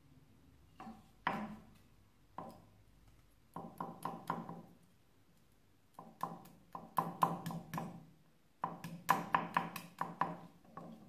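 Mosaic hammer striking pieces of Venetian smalti glass on a steel hardie blade set in a wooden stump, cutting them into small tesserae. The strikes are sharp, metallic and briefly ringing. They come singly at first, then in quick runs of several strikes, with the last two runs the longest.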